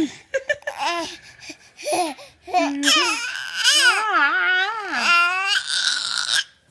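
A baby vocalizing in a string of squeals and gliding, wavering coos, ending in a fast warbling trill: the new noise he is making with his mouth.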